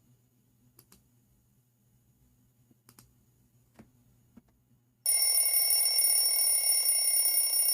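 A few faint clicks over a low hum, then about five seconds in a bell starts ringing loudly and continuously, a steady jangling rattle like an electric or telephone bell.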